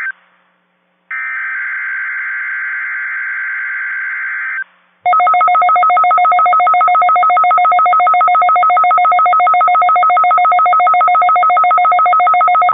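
NOAA Weather Radio test signal: about a second in, a harsh burst of SAME digital header data lasting a few seconds. About five seconds in, a louder, rapidly pulsing electronic alert tone starts and holds steady.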